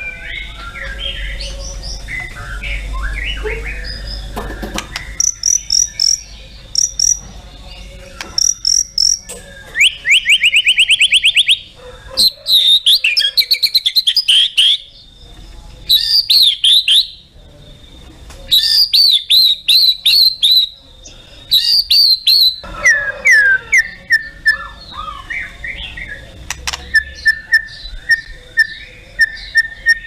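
White-rumped shama singing a varied, loud song: chattering phrases, a fast rising trill, bursts of short whistled notes, and near the end a run of evenly repeated short notes.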